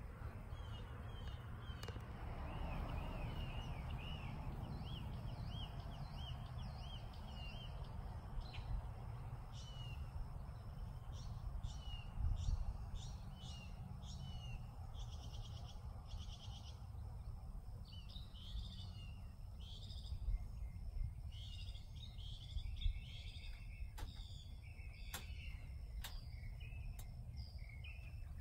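Birds chirping and calling repeatedly in short notes over a steady low rumble, with a few sharp clicks near the end.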